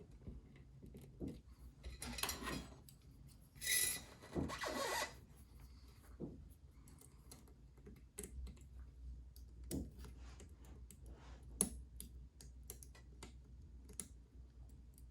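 Lock pick and tension wrench working inside a challenge lock: small metallic clicks and scrapes, with two longer scraping sounds a few seconds in.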